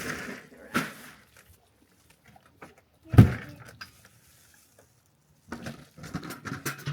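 Scattered knocks and clatter of objects being handled, with one loud thump about three seconds in and a run of rattling near the end.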